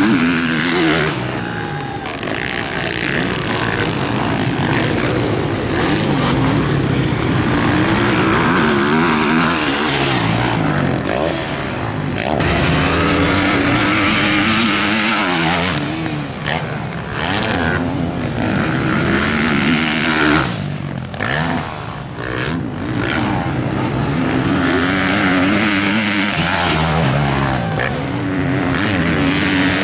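Motocross motorcycle engines racing on a dirt track, revs repeatedly rising and falling as the riders open and shut the throttle through corners and over jumps.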